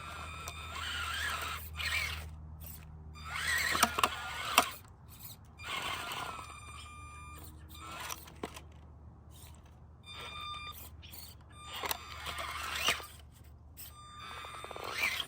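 A 1/24-scale RC crawler's small electric motor and drivetrain whine in repeated throttle bursts of a second or two each, with tires scraping and scrabbling. There are a couple of sharp knocks about four seconds in.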